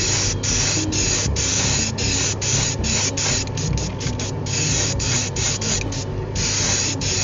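Paint being sprayed onto a small die-cast car body: a loud hiss of spray from the nozzle, released in a quick run of short bursts with brief stops between them.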